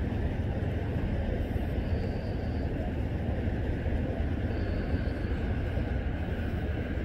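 Steady low rumble of vehicle engines idling.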